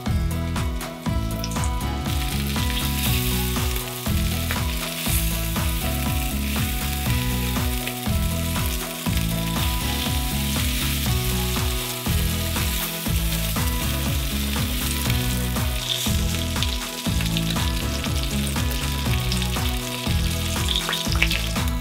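Pork-wrapped chikuwa rolls sizzling as they fry in oil in a square pan, the sizzle setting in about two seconds in and holding steady. A few sharp clicks near the end.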